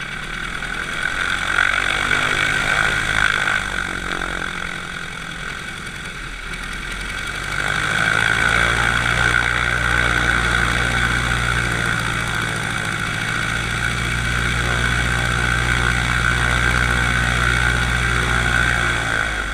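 Wing-walking biplane's piston engine and propeller running on the ground while the plane taxis on a grass strip. The engine note rises about seven to eight seconds in, holds steady at the higher power, and eases off just before the end.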